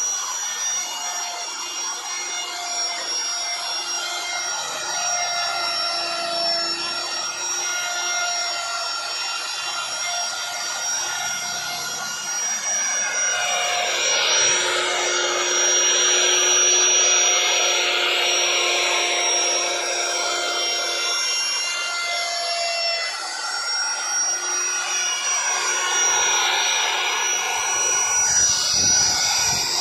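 Edico electric plunge router running at speed, a steady high whine, with the rasping noise of its bit carving a relief pattern into a wooden door panel. The cutting noise grows louder about halfway through and again near the end.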